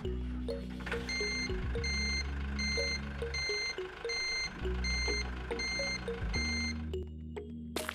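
Truck reversing alarm beeping steadily, about two beeps a second, starting about a second in and stopping near the end, over background music.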